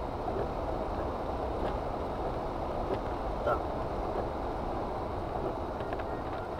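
Steady rushing noise inside a car's cabin as it drives through floodwater in heavy rain, with the heater blower running on full to clear the fogged windscreen.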